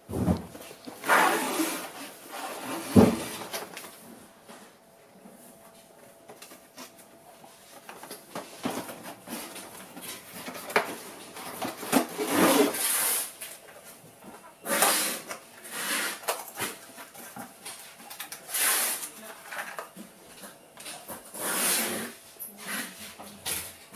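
Cardboard packaging and small plastic parts being handled: irregular rustling, scraping and tapping in short bursts, with a sharp knock about three seconds in.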